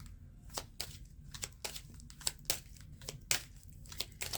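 A deck of fortune-telling cards being shuffled by hand: irregular soft snaps and flicks as the cards slide and slap together.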